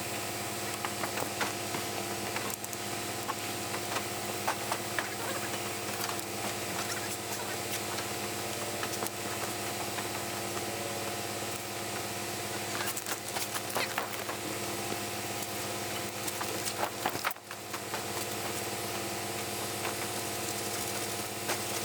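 An engine running steadily at a constant speed, with scattered clicks and knocks over it.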